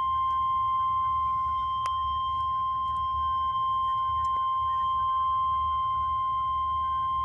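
Warning alert tone of a National Weather Service (NOAA Weather Radio) broadcast: one steady, unbroken high-pitched tone that signals a warning is about to be read. A faint low hum sits beneath it.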